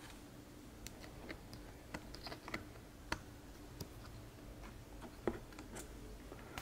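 Faint, irregular light clicks and taps of small accessories and packaging being handled, about nine in all, over a faint steady hum.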